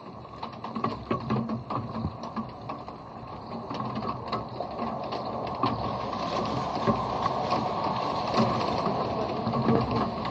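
Raindrops hitting the bare body and microphones of an Insta360 One X2 camera, a dense, irregular patter of close ticks over the hiss of rain. It gets louder about halfway through.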